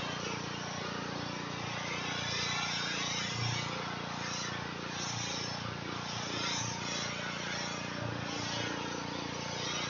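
Pressure washer running steadily: an engine drone under the hiss of the high-pressure water jet hitting the wall.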